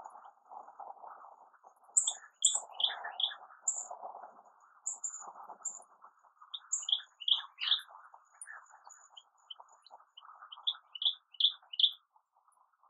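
Dawn birdsong: small birds chirping in quick runs of short, high notes, over a constant lower-pitched background noise.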